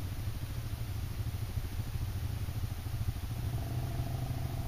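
Quad bike (ATV) engines idling with a steady low rumble. A faint, steady higher engine tone joins about three and a half seconds in.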